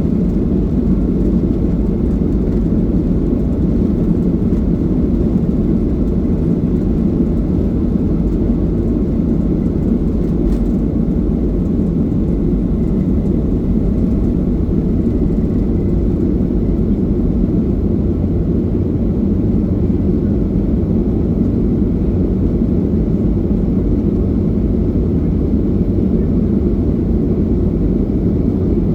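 Steady, loud cabin noise of a Boeing 737-800 under takeoff thrust: its CFM56-7B jet engines and the rushing airflow, a deep even rumble with no changes.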